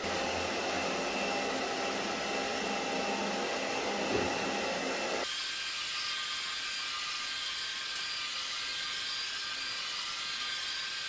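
ILIFE V5s Pro robot vacuum running in spot-cleaning mode: a steady motor and fan whir with a faint whine in it. About five seconds in the sound changes abruptly, losing its lower hum and turning to a thinner, higher hiss.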